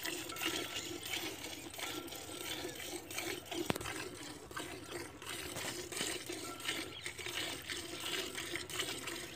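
Milk squirting in repeated spurts from a cow's teats into a steel bucket during hand milking.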